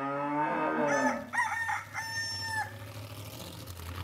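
A loud animal call in three parts, starting about a second in, the last part held steady for about half a second. It follows the end of some music and gives way to a steady low drone.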